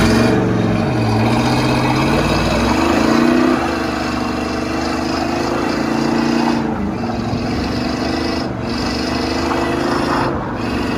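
A 1986 Chevy K20 square-body pickup's 350 V8 pulling the truck along. The engine note rises in pitch over the first few seconds, then holds steady, easing off briefly a few times.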